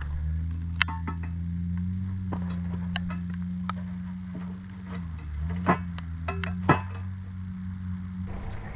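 Cast-iron Dutch oven being set down on a fire pit: a series of sharp metal clinks and knocks from its lid and wire bail handle. A steady low hum runs underneath and cuts off suddenly near the end.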